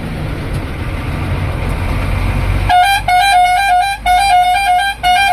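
Low steady rumble of a vehicle on the move. About two and a half seconds in, a Volvo bus's musical multi-tone horn starts playing a quick tune of stepping notes, in bursts about a second long with short breaks between them.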